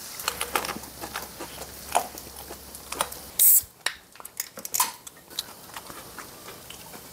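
Chopsticks and dishes clicking and tapping during a meal. About three and a half seconds in, a short, loud fizzy hiss as a soda can is popped open.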